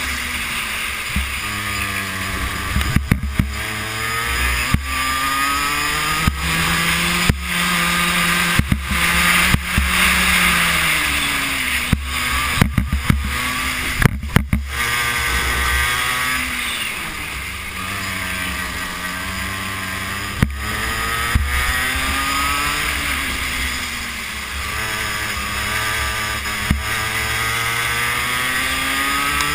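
Racing kart engine heard on board, its pitch climbing as it accelerates and dropping as it slows for corners, over and over through the lap. Scattered sharp clicks and knocks cut in, most of them in the first half.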